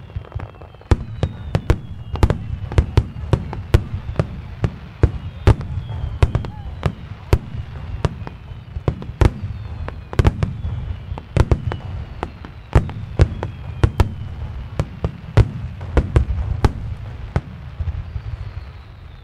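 Aerial fireworks shells bursting in rapid, uneven succession: dozens of sharp bangs, several a second, over a continuous low rumble. Faint high whistling tones fall slowly in pitch.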